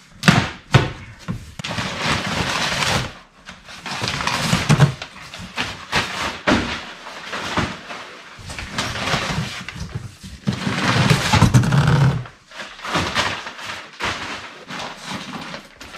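Cardboard box flaps being pulled open, then crinkly packing paper being pulled out and handled, in irregular rustling bursts.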